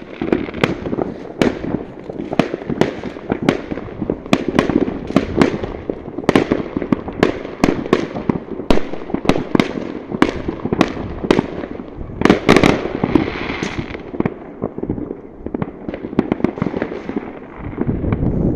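New Year's fireworks going off over a town: a dense, irregular run of sharp cracks and bangs, several a second, over a constant rumble of distant booms, with a louder cluster about two-thirds of the way through.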